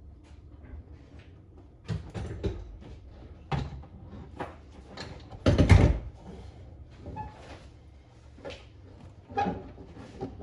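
A series of knocks and clunks, with one heavy thud about halfway through.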